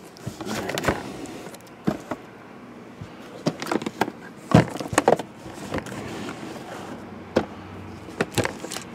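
Shrink-wrapped metal trading-card tins being handled and set down on a table: irregular knocks and clunks, the loudest a cluster about four and a half to five seconds in.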